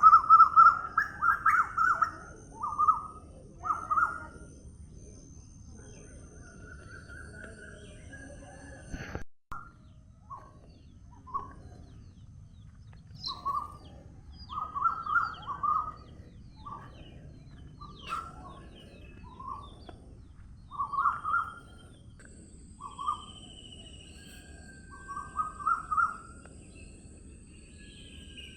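Birds singing and calling: bursts of short, repeated mid-pitched chirps with thin high whistles from other birds behind, over a steady low outdoor hiss. The whole ambience drops out abruptly for a moment about nine seconds in.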